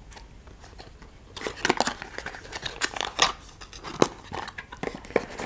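Hands handling small cardboard boxes and a plastic sample pod: scattered clicks, taps and short cardboard scrapes as a box is pulled out of a cardboard advent-calendar tray, starting about a second in.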